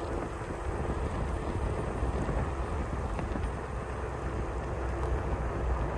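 Wind buffeting the microphone over a steady rolling rumble of wheels on asphalt, as from riding along a paved path.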